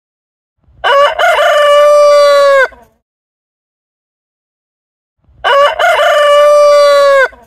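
A rooster crowing twice, each crow about two seconds long: a few short broken notes, then a long held note that drops off at the end. The two crows are identical copies of one call.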